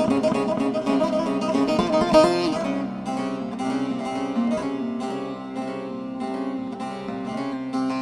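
Instrumental background music on a plucked string instrument; a busy run of notes gives way about two and a half seconds in to a quieter passage of evenly spaced plucked notes.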